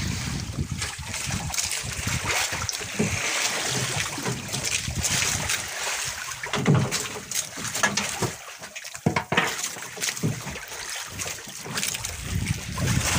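Wind buffeting the microphone and sea water splashing and rushing against a small outrigger fishing boat, in uneven surges.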